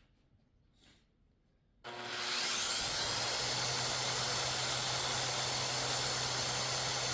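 Handheld electric belt sander switched on about two seconds in, its whine rising as it spins up and then running steadily, sanding down an oak knife handle.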